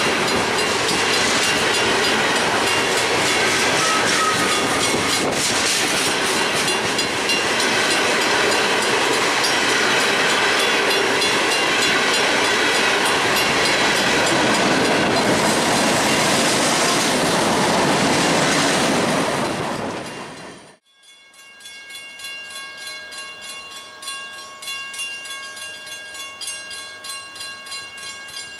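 Freight train cars rolling past close by, wheels clacking and rumbling over the rail joints in a loud, steady run. About two-thirds of the way through it cuts off abruptly, leaving a much quieter steady pitched tone.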